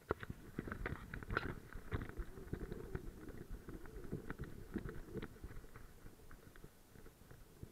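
Irregular clicks, knocks and rustling from a camera strapped to a moving dog: fur rubbing on the camera and the dog's footfalls on leaf litter.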